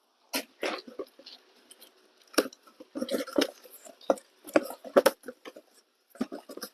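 Irregular clicks, rustles and light knocks of car parts in plastic packaging and boxes being handled.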